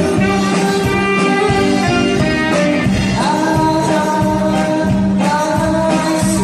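A woman singing a slow song into a microphone over amplified backing music with guitar; about three seconds in she slides up onto a long held note.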